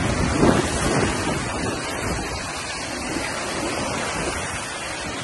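Strong storm wind rushing and buffeting the microphone, a steady roar of noise with gusts.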